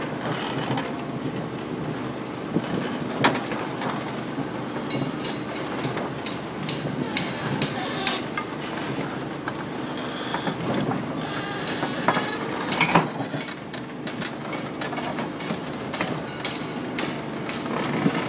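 Komatsu PC450 tracked excavator crawling onto a low-loader trailer, its steel track shoes clanking and rattling over the deck with the engine running. Sharp metallic knocks stand out about three seconds in and twice near thirteen seconds.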